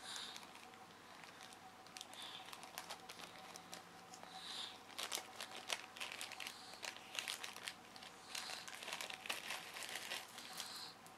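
Packaging being handled and pulled open as a small item is taken out of a mail package: a run of sharp, irregular crackles, sparse at first and busiest in the second half.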